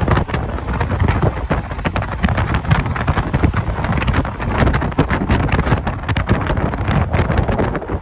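Wind buffeting the microphone of a moving vehicle, with a steady low road rumble beneath it.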